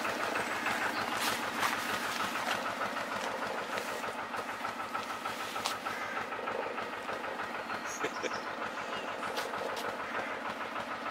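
Narrowboat diesel engine running at low revs with a steady, even chugging beat.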